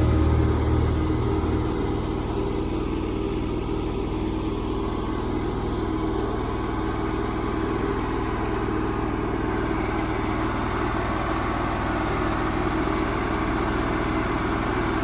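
Wood-Mizer LT35 sawmill's engine running at a steady speed, louder for the first second or two and then even.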